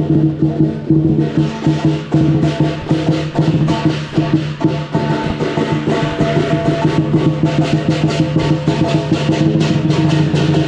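Lion dance percussion: the big lion dance drum beaten in a fast, dense rhythm with clashing cymbals and gong. The cymbal clashes come in thicker about a second in.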